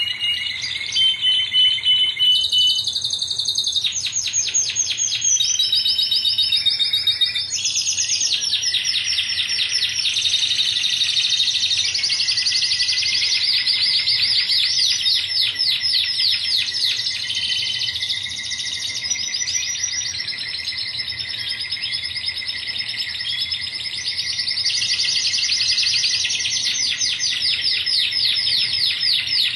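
Domestic canary singing a long unbroken song of fast trills and rolls. The song shifts from one tour to the next every few seconds.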